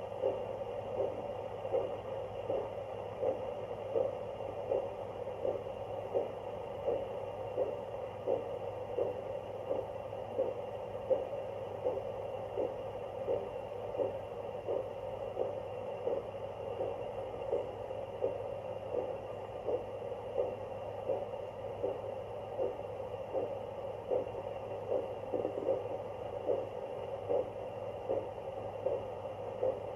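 Fetal Doppler playing a rhythmic whooshing pulse of blood flow over a steady hum, about 75 beats a minute: an adult's pulse rate, far slower than a fetal heartbeat, so the mother's own circulation.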